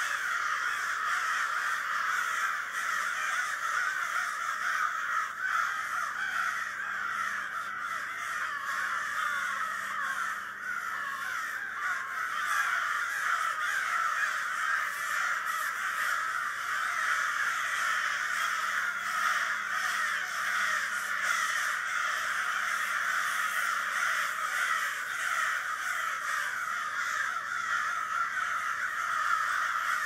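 A large flock of crows cawing continuously, many calls overlapping into a steady racket.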